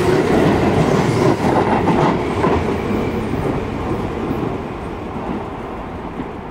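Tobu 10000-series electric commuter train pulling out of the station, its wheels clattering over the rail joints as the last cars pass, the sound fading gradually as it runs away into the distance.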